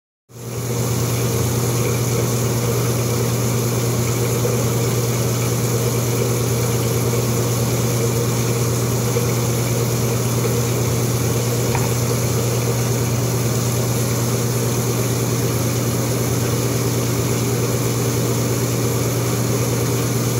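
Bathroom exhaust fan running: a loud, steady electric hum with an even hiss above it.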